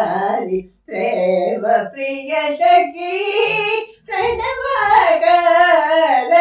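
Elderly woman singing Indian classical music unaccompanied, in phrases broken by short breaths about a second in and about four seconds in, her voice wavering in ornaments on the held notes.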